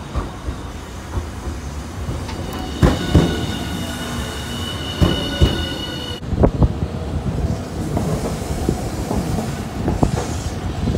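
Streetcar wheels rolling over curved street track, knocking over rail joints and points. A high steady wheel squeal from the tight curve sets in about two seconds in and cuts off suddenly after about four seconds, followed by another tram rumbling over the points with a run of knocks.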